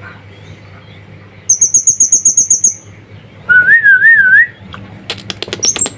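Caged songbird calling: a fast, high trill of about a dozen notes, then a wavering, warbled whistle. A quick run of sharp clicks and short high notes follows near the end.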